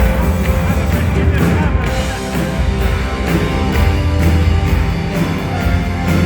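Rock band playing live, with guitar over a steady drum beat and regular cymbal strokes.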